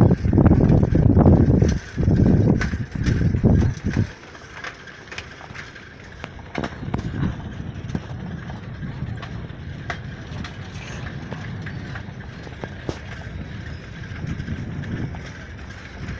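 Road noise of a moving vehicle, with loud wind buffeting on the microphone for the first four seconds that stops abruptly, followed by a quieter steady hum and whine with scattered clicks and rattles.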